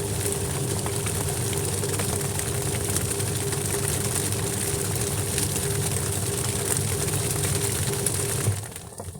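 A motor runs steadily at constant speed, with a low hum, a steady tone and a broad hiss. It winds down and fades near the end.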